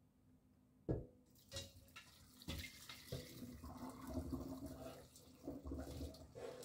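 Boiled ackee and its cooking water poured from a pot into a perforated stainless-steel colander in a metal sink: water splashing through and draining away. A sharp knock about a second in, just before the pour, and a few light clunks during it.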